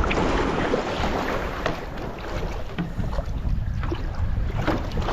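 Wind rumbling on the microphone over a steady wash of noise, with short scattered clicks.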